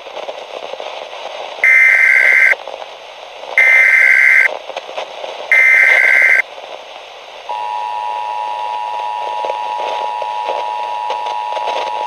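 Emergency Alert System tones over a hiss of radio static: three roughly one-second bursts of the warbling SAME data header, then about halfway through the steady two-tone EAS attention signal comes in and holds.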